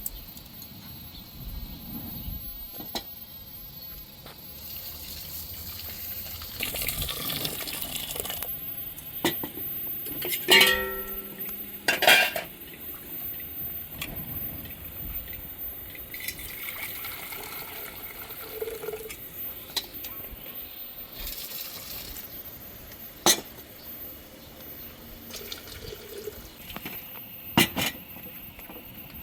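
Pots and dishes clinking now and then, with stretches of liquid being poured or splashed. A sharp clink about ten seconds in rings on with a clear metallic tone.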